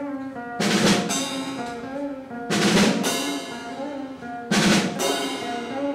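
Small band playing a song's instrumental intro after a count-in: drums with a cymbal crash about every two seconds over held, stepping keyboard notes.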